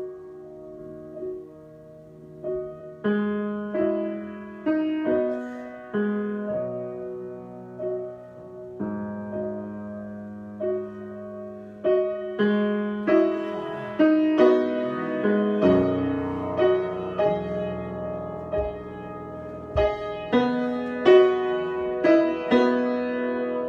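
Solo piano improvisation: chords and single notes struck and left to ring, the playing growing busier and louder about halfway through.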